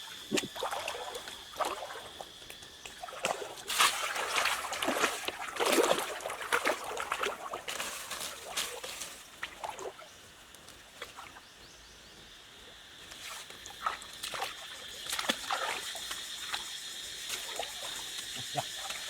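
Irregular splashing and sloshing in shallow river water as someone wades and grabs about, over a steady high-pitched drone. The splashing is busiest in the first half, dies down for a few seconds past the middle, then picks up again.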